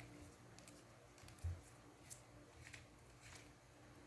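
Near silence with a few faint clicks and a soft thump about one and a half seconds in: small plastic parts and packaging being handled.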